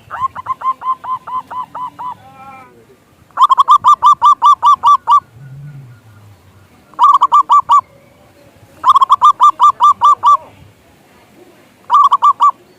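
Zebra dove (perkutut) calling in repeated bouts of fast staccato notes, about eight a second, with five bouts in all. The first bout is fainter and ends in a short falling flourish; the later ones are loud and last about half a second to two seconds each.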